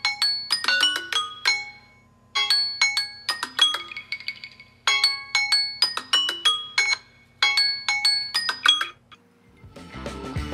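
Samsung Galaxy Z Flip 3 ringing for an incoming Signal call: a bell-like ringtone melody whose phrase repeats about every two and a half seconds, stopping about nine seconds in when the call is answered. A different, denser sound starts just before the end.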